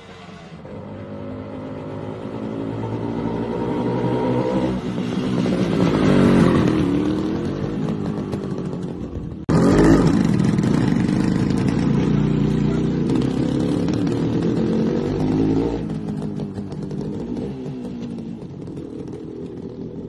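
Motorcycle engine running as it is ridden, its pitch rising and falling with the throttle. The sound jumps abruptly and gets louder about halfway through.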